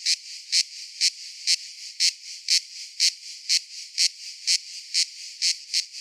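Cicada calling: loud rhythmic pulses about twice a second over a fainter steady high buzz, the pulses coming slightly faster near the end.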